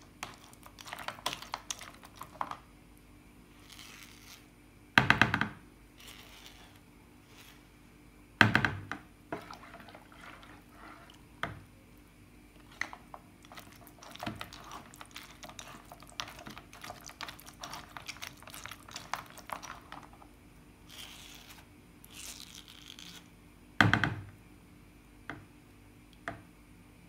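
Metal spoon scraping and pressing boiled tamarind pulp through a plastic sieve: soft, irregular scrapes and clicks. Three louder, briefly ringing knocks come about five seconds in, a few seconds later, and near the end.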